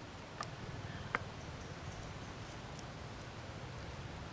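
Fingers picking apart grilled fish and folding lettuce leaves: a few faint clicks and small crackles, the clearest about half a second and a second in, over a low steady background.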